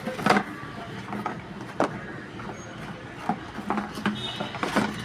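Parcel being packed by hand: irregular rustles, taps and knocks of the packaging and the boxed foam cannon being handled, the loudest about a third of a second in and just before two seconds.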